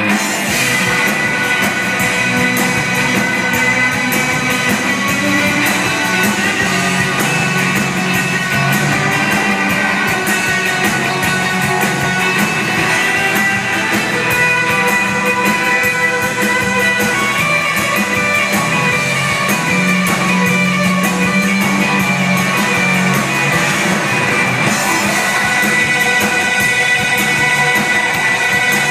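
Live band playing amplified music, with electric guitars, upright bass, drums and keyboards, heard from the audience through a phone's microphone.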